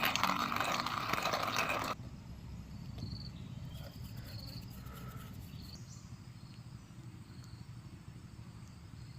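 Countryside ambience: a loud, dense insect chirring cuts off suddenly about two seconds in. It leaves a low rumble with a few short, high chirps.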